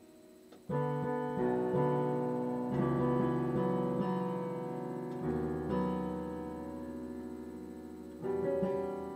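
Piano playing: a soft fading tail, then just under a second in a loud chord, followed by a run of sustained, slowly decaying chords and notes, with another loud chord near the end.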